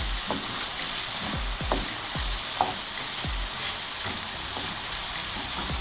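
Diced zucchini, sweet pepper and tomato sizzling in a frying pan while a spatula stirs them. The spatula makes repeated short scrapes against the pan, roughly every half second, over a steady sizzle.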